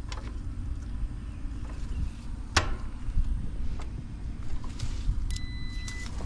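A steady low hum with scattered sharp clicks as control wiring and wire connectors are handled. Near the end comes a short, steady high electronic beep lasting under a second.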